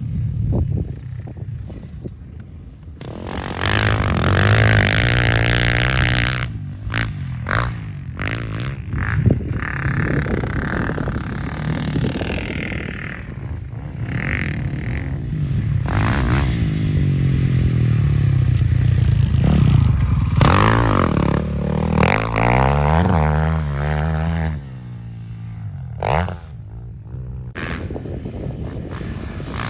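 A 450cc four-stroke motocross bike being ridden hard. The engine note climbs and falls again and again, with several brief drops as the throttle is closed.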